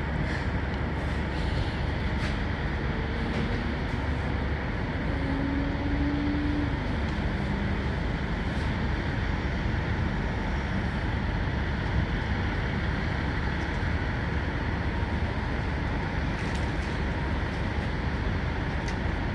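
Steady low rumble of idling semi-truck engines with traffic noise; a few seconds in, an engine tone briefly rises and then drops away.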